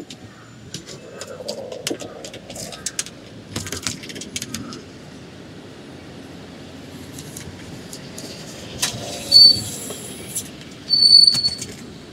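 Brakes squealing twice, each a short high-pitched squeal, the second a little longer, over traffic noise.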